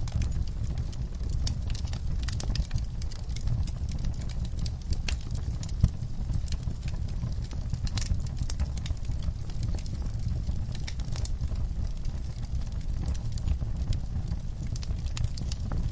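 Wood fire crackling: a steady low rumble of burning with frequent sharp pops and snaps, one louder pop about six seconds in.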